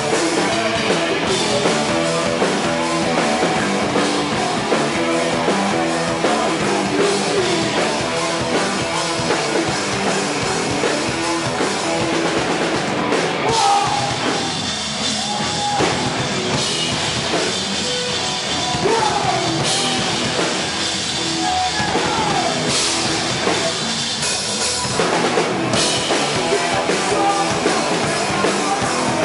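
A heavy rock band playing live and loud: distorted electric guitar and drum kit with the singer's vocals.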